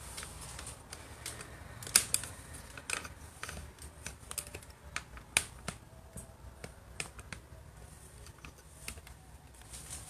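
A series of sharp, irregular clicks and taps, a few a second, the loudest about two seconds in and again past the middle.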